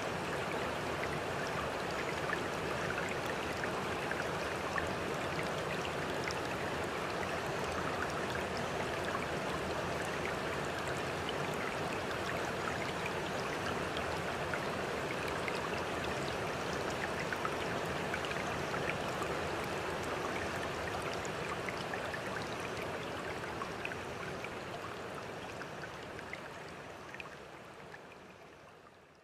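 Steady rushing-water ambience, like a running stream, with faint scattered droplet ticks, fading out over the last several seconds.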